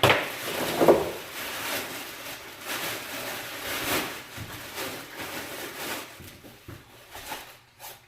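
Cardboard box and packing material being handled and pulled open: a run of rustling and scraping sounds, with the loudest scrapes right at the start and about a second in, then tapering off near the end.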